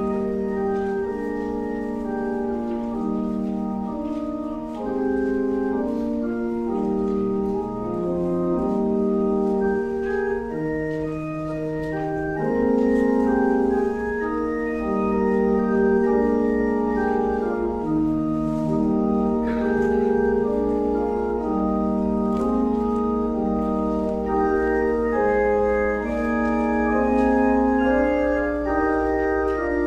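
Organ playing slow music in held chords, the notes moving every second or two.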